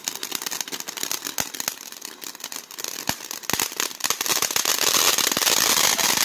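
Ground-fountain firework spraying sparks, with a steady run of sharp crackles. About four and a half seconds in it gets louder and turns into a dense, rushing hiss full of crackling.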